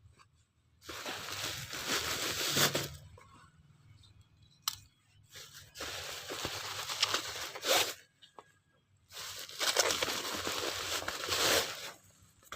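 Parcel packaging being torn open in three long rips of about two seconds each, with a single sharp click between the first and second.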